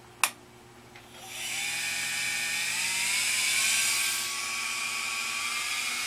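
A sharp click, then about a second in a small hair-dryer fan motor and impeller spins up on 12 volts DC: a rising whine that levels off, over a steady rush of air.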